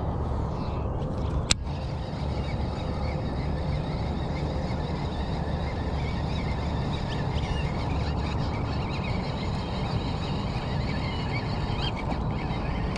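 A steady low rumble with scattered bird chirps over it, and one sharp click from the fishing reel about a second and a half in, just after the cast.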